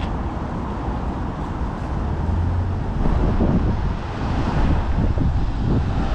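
Wind rumbling on the microphone over street traffic, gusting harder from about three seconds in.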